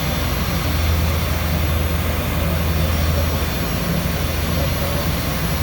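Fein magnetic drill running steadily as it bores through 5-inch steel plate: a constant machine drone with a strong low hum.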